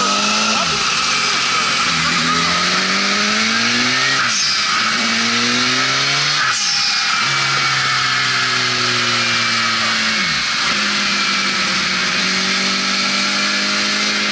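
Turbocharged Suzuki Bandit 1200 air/oil-cooled inline-four running hard on a roller dyno, its revs climbing and dropping sharply several times, then holding steady near the end, with a high whine rising and falling with the engine.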